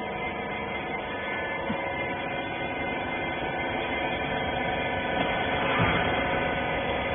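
Hydraulic rag baler's electric motor and pump running, a steady hum with a whine made of several steady tones. It grows a little louder about five seconds in.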